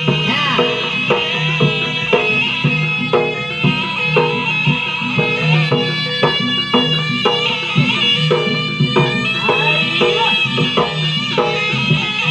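Jaranan gamelan music: a reedy shawm (slompret) playing a sustained, ornamented melody over a steady beat of kendang drums and struck gongs.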